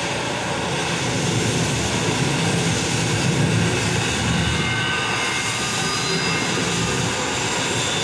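A film's opening-title soundtrack playing over cinema speakers: a loud, steady, low rumbling roar, recorded on a phone in the hall.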